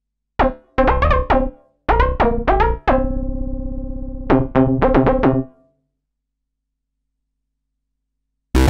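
Modal Electronics Cobalt 8X virtual-analog synthesizer playing a factory preset: a phrase of short, sharply struck notes with a held chord in the middle, dying away about five and a half seconds in. A different, denser rhythmic sound starts just before the end.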